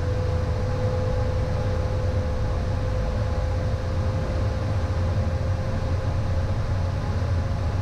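Steady in-flight cockpit noise of a Beechcraft Premier I business jet: a low rumble of airflow and engines with a steady high hum over it.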